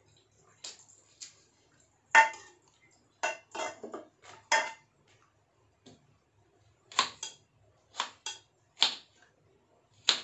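Kitchen knife chopping vegetables on a wooden cutting board: about a dozen sharp, irregularly spaced knocks of the blade striking the board, the loudest about two seconds in.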